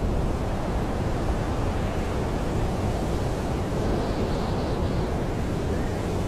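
Blizzard wind howling in a steady low rush, with a faint higher whistle about four seconds in.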